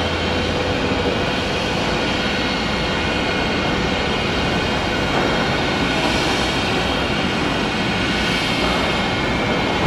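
Dust-suppression cannon's 12.5 kW fan blower running steadily, a constant rushing drone.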